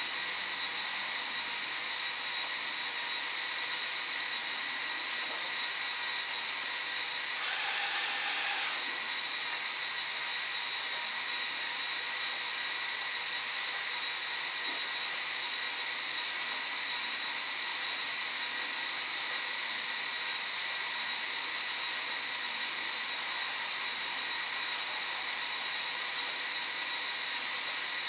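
Lego Technic crane model's electric motor and gear train running steadily with a high whine as the boom slowly raises. About eight seconds in, a second, slightly louder note joins for about a second.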